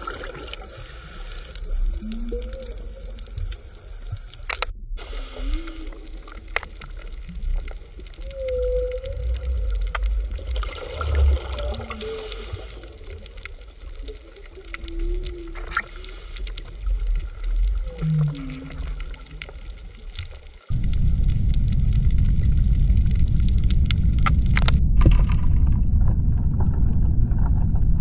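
Underwater ambience: a low rumble with repeated short, gliding, moan-like tonal calls, whale-song-like, and scattered faint clicks. About 21 s in it cuts abruptly to a steady, louder low rushing noise.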